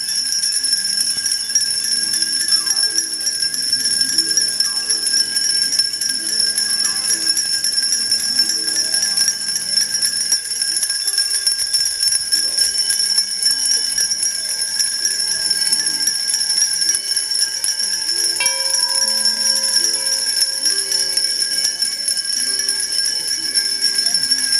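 Many bells ringing together without pause, a steady, dense jangle of overlapping ringing tones.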